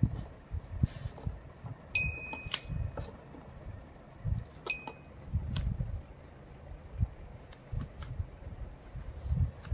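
Two notes struck on the metal bars of a child's toy xylophone, a few seconds apart, each ringing briefly, the first longer. Soft low thumps and knocks from a baby moving about on a foam play mat run underneath.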